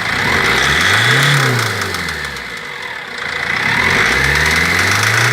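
Cummins diesel engine in a GAZelle Next van, revved up twice from idle and let fall back each time. Each rev rises and drops in pitch over a couple of seconds. The revs are blips of the throttle to check whether the engine knocks.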